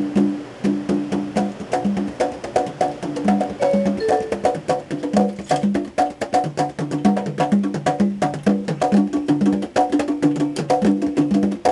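Two percussionists playing a fast, steady rhythm of pitched drum notes with sharp clicks on nearly every beat.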